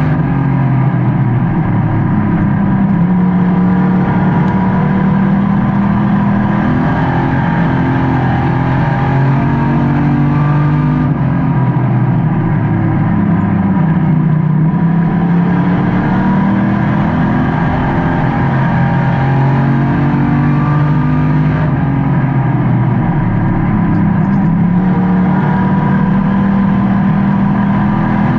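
Race car engine heard from inside the car at racing speed, revving up and easing off in turn, its pitch climbing and dropping every several seconds as the car accelerates down the straights and lifts for the turns.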